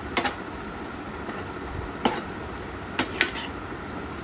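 Steel spatula stirring dried shrimp in a nonstick kadai, knocking and scraping against the pan four times over a steady low hiss of the frying.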